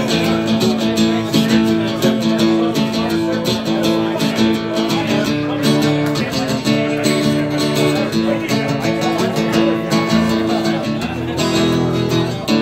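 Acoustic guitar strummed in a steady rhythm, an instrumental passage of a country song with no singing.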